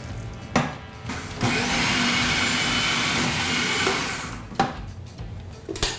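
Food processor motor running for about three seconds, whirring steadily as it mixes dressing into riced cauliflower, then winding down. A click comes shortly before it starts, and a couple of clicks come after it stops.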